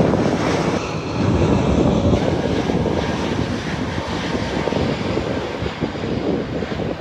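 Airliner's engines, a steady loud rushing noise as the aircraft comes in to land.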